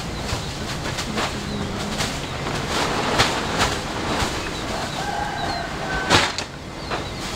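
Steady rushing noise of a taxiing Airbus A320 jet airliner mixed with wind buffeting the microphone in repeated gusts, the strongest about six seconds in. A few faint bird chirps come through about four seconds in.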